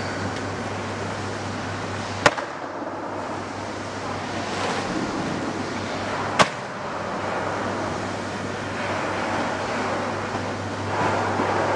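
Steady machinery noise from automatic packaging machines in a workshop, with a constant low hum, broken twice by a short sharp click about four seconds apart.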